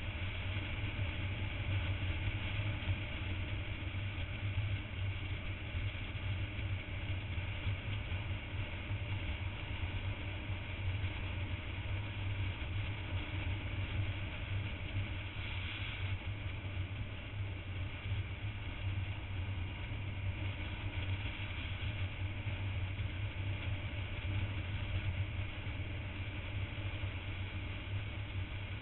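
Motorcycle engine running steadily at cruising speed, mixed with wind and road noise on a camera riding on the bike.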